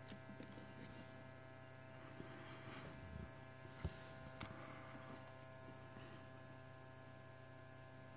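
Faint, steady electrical hum, with a couple of faint handling clicks around the middle.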